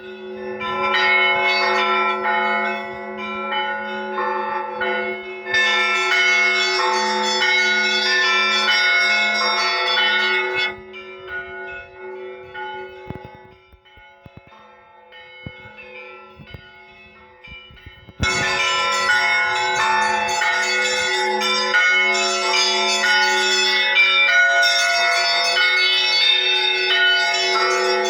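Russian Orthodox church bells rung by hand from the belfry: a fast peal on the small high bells over a steady low hum. It thins out to a few quieter strokes about ten seconds in, then comes back at full strength about two-thirds through.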